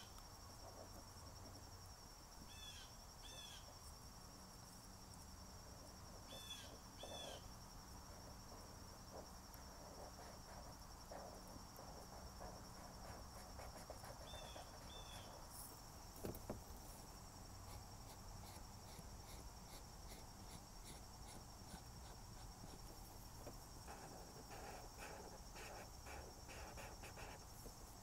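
Near silence, with faint felt-tip marker strokes on paper that become a run of quick scratches near the end. A faint double chirp sounds four times in the first half, over a steady faint high tone.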